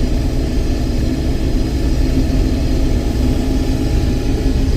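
Combine harvester running steadily under load while cutting and threshing soybeans, a constant engine and machinery drone heard from inside the cab.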